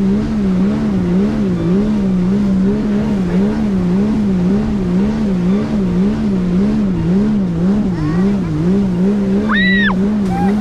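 Jet ski engine running steadily under way, its pitch wavering up and down about twice a second. Near the end comes a brief high rising-then-falling sound.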